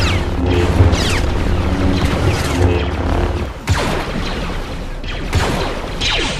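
Star Wars-style blaster sound effects: several blaster shots, each a quick falling zap, mixed with sharp impacts. Under the first half there is a steady low hum that cuts off about three and a half seconds in.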